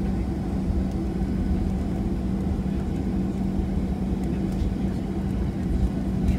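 Cabin noise of a Boeing 737-700 on the ground: its CFM56 jet engines and the airframe give a steady low rumble with a constant hum as the airliner taxis.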